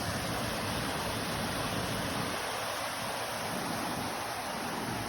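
The Salgir river's water rushing steadily.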